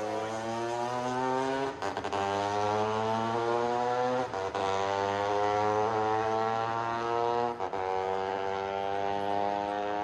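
Race motorcycle engine accelerating hard through the gears, its note climbing in each gear with three quick upshifts that briefly cut the sound.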